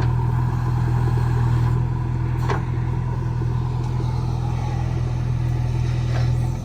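Diesel engine of working machinery running steadily at a constant speed, with a couple of faint knocks or clanks.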